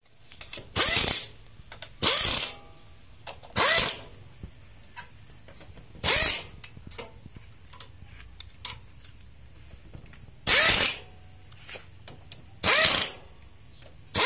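Cordless screwdriver driving the clutch-cover bolts on a Bajaj CT100 motorcycle engine, its motor whirring in six short bursts of about half a second each, spaced unevenly, with small metal clicks between them.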